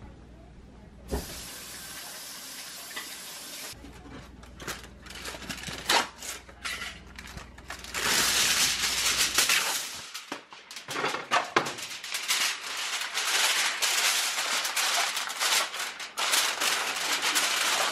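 Aluminium foil being pulled from its box and crinkled as it is pressed down over a glass baking dish. The crinkling is loud and nearly continuous from about halfway through.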